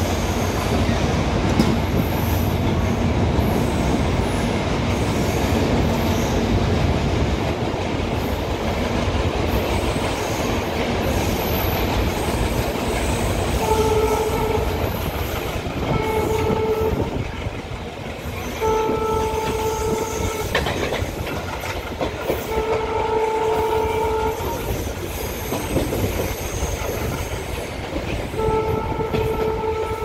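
Express train running through at speed, its coaches rumbling and clacking over the rail joints. From about halfway in, the ALCO diesel locomotive's horn sounds five separate blasts of one to two seconds each; the last is still going at the end.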